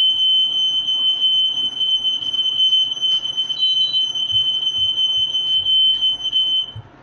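Smoke alarm sounding one continuous high-pitched tone with a slight pulsing, then cutting off near the end. It was set off by cooking smoke from the pan with the extractor fan off.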